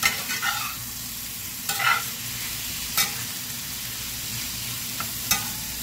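Diced chicken breast sizzling in hot oil in a cast iron skillet as a metal spatula stirs it. There is a steady hiss, with a few sharp scrapes and knocks of the spatula against the pan.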